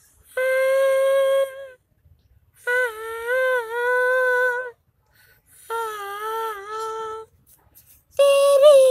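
A boy singing four long, held notes with short breaks between them, the pitch wavering and sliding within each note.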